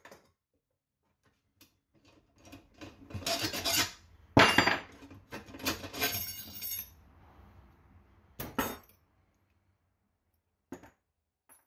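Metal clinks and clanks of a wrench, nut and threaded rod being loosened and pulled out of a motorcycle wheel hub, a string of separate knocks with the loudest about four and a half seconds in.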